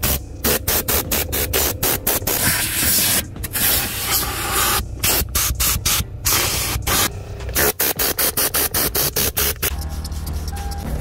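Compressed-air blow gun blasting dust out of a car's interior, glove box, seat rails and carpet, in rapid hissing pulses several times a second, with a few longer held blasts in the middle. Near the end the blasts stop and a quieter, steady hum remains.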